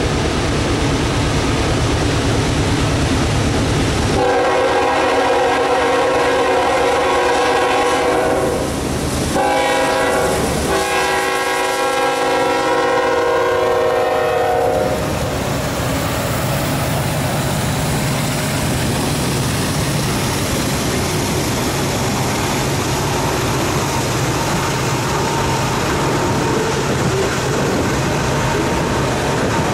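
Diesel freight train passing: the lead locomotive's air horn sounds two long blasts from about four seconds in to about fifteen seconds, its pitch dropping as the locomotive goes by. After that comes the steady rumble and wheel clatter of autorack cars rolling past.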